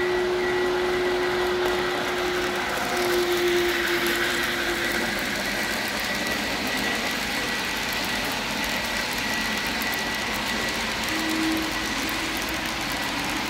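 N gauge model train running past: a steady whirr and rattle, with a held tone through the first few seconds and briefly again near the end.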